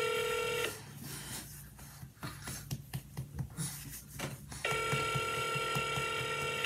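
Telephone ringback tone heard over the dialer's speaker: a ring that stops just under a second in, then after a four-second pause a second ring of about two seconds near the end. The outgoing call is still ringing, not yet picked up. Faint clicks and rustles in between.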